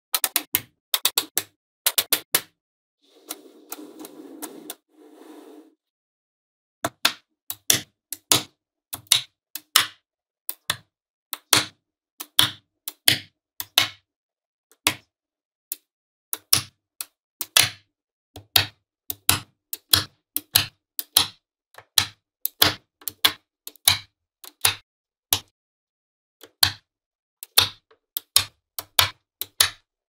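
Small neodymium magnetic balls clicking sharply as blocks of them are snapped together, about two clicks a second. About three seconds in, a short stretch of soft rubbing as the balls slide against each other.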